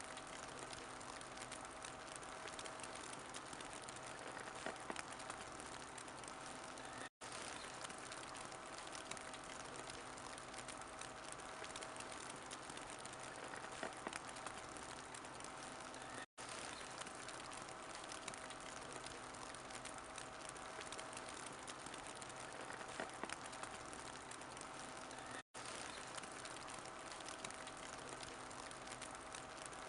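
Fireplace fire burning with a steady hiss and small scattered crackles and pops. The sound cuts out briefly three times, evenly spaced about nine seconds apart, like the seam of a repeating loop.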